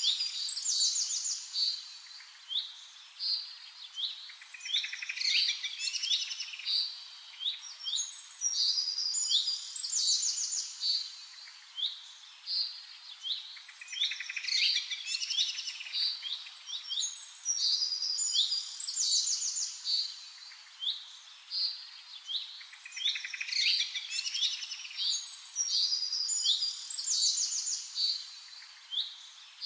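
Birdsong: many small birds chirping and twittering in high, quick calls that swell and fade in bouts every few seconds.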